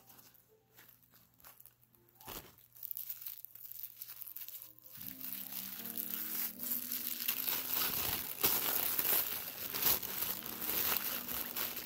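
Thin clear plastic packaging crinkling as it is handled and pulled off a folded fabric tote bag. The crinkling is sparse at first, then grows denser and louder in the second half, over soft background music.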